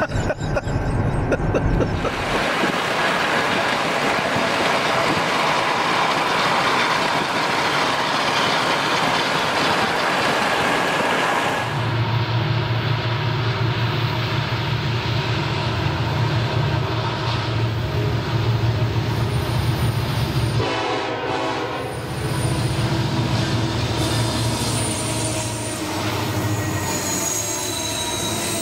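Union Pacific diesel freight train coming out of a tunnel and running close past. A broad rushing noise from about two seconds in gives way, about twelve seconds in, to the deep steady drone of the lead diesel locomotives. High wheel squeal comes in near the end as the freight cars roll by.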